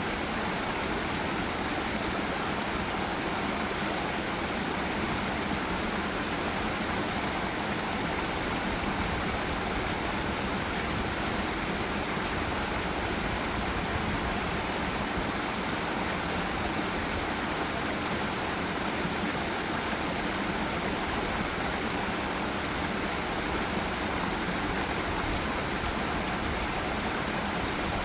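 Water of a forest river or waterfall rushing, a steady, even roar of flowing water that does not change.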